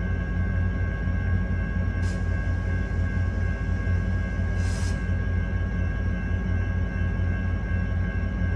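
EMD F59PHI diesel locomotive idling with a steady low hum and a constant high whine. Two short hisses come about two seconds and about five seconds in.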